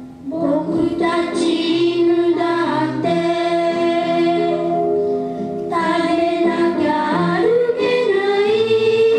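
Children singing a song over an instrumental accompaniment, with long held notes.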